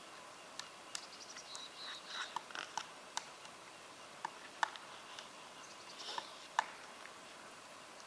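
Pileated woodpecker excavating a burned tree trunk: single sharp knocks of its bill on wood at irregular intervals, with no drumming roll. The loudest knocks come about four and a half and six and a half seconds in.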